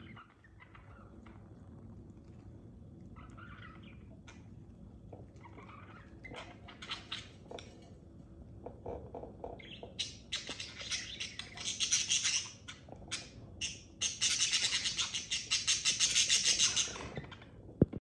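A group of caged budgerigars chirping and chattering: scattered chirps at first, then from about ten seconds in a loud, rapid, high chatter that dips briefly, rises again and fades out near the end.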